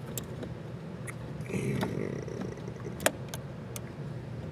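Scattered sharp metal clicks and clinks of a 5/16 socket wrench and extension being handled and seated on a small screw head, with a cluster of clicks about three seconds in and a brief soft rustle about a second and a half in.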